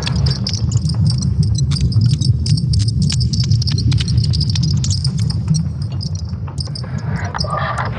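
Sonified recording of Earth's magnetic field: a deep, steady rumble with scattered clicks and a jangly, chime-like high ringing over it.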